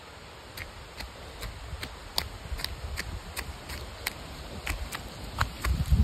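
Footsteps in slide sandals on a dry dirt trail with leaf litter, a regular crunch and slap about two to three times a second. Under them runs a steady low rumble that grows heavier near the end.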